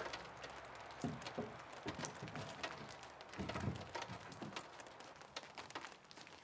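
Wooden top board of a window casing frame being handled and fitted onto its uprights: scattered light wooden knocks and scrapes, with a heavier thud about three and a half seconds in.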